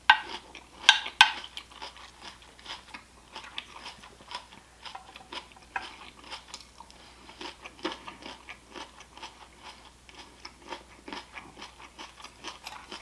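A person chewing and crunching a mouthful of pan-fried wontons and salad, with a string of small crunches and wet mouth clicks. Two sharper crunches come about a second in.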